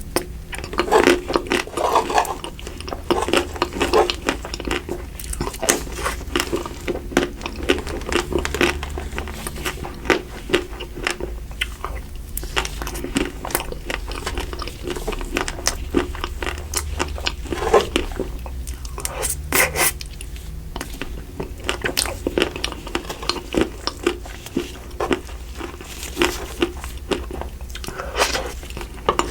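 Close-miked eating of crunchy ice cream: irregular sharp crunches as bites break through the hard layer, mixed with wet chewing and mouth sounds.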